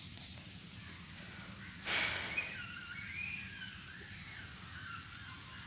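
A short rush of noise about two seconds in, followed by a bird's warbling, gliding calls over a faint outdoor background.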